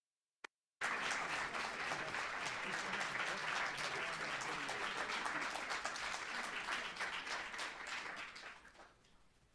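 Audience applauding. The sound cuts in a little under a second in, after a moment of dead silence broken by one faint click, and the applause dies away near the end.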